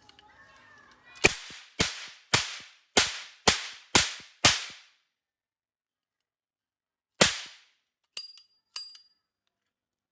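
Rapid gunshot-like bangs: seven in quick succession about half a second apart, each with a short ringing tail. After a pause comes one more bang, then two lighter metallic clicks with a brief ringing tone.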